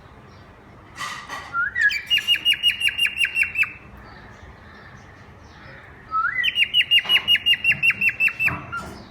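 Pet parrot calling in two bouts, each a rising note that runs into a rapid series of sharp, shrill squawks, about seven a second. The first bout starts about two seconds in and the second near six seconds.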